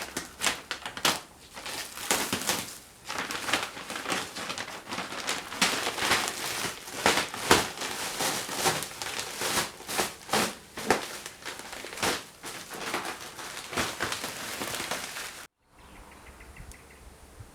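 A shipping box and its packing material being opened and pulled apart by hand: irregular rustling and crinkling with many sharp clicks and small knocks. It cuts off suddenly near the end, leaving faint room tone.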